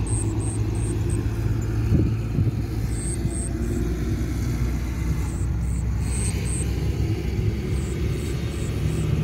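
A steady low rumble with insects chirping over it at night: short, high, evenly spaced chirps at about three a second, coming in bouts that stop and start.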